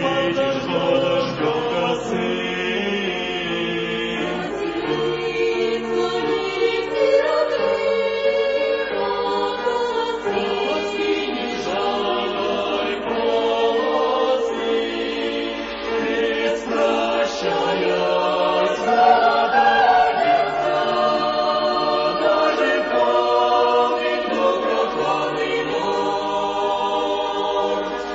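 Choir singing, the voices holding long sustained notes.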